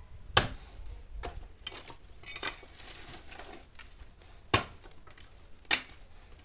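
Sticks of firewood being dropped and stacked onto a bonfire pile: a series of sharp wooden knocks and clatters, irregular and a second or more apart, with a brief rustle of branches about halfway through.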